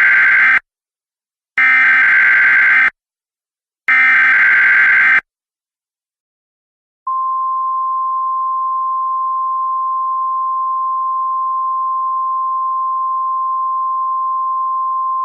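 Emergency Alert System SAME header: the end of one harsh warbling digital data burst and then two more, each lasting about a second and a quarter, with about a second of silence between them. About two seconds after the last burst, the single steady 1050 Hz National Weather Service alert tone begins and holds.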